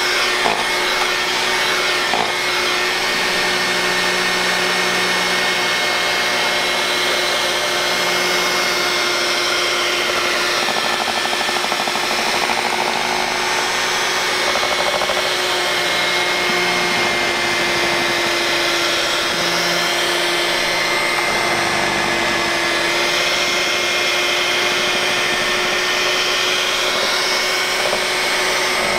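Electric hand mixer running steadily at one speed, its two beaters whirring through a thick chocolate and heavy cream truffle mixture in a stainless steel bowl.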